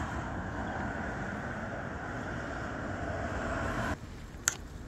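Steady rushing of wind through the trees' leaves and branches, cutting off abruptly near the end, followed by a single sharp click.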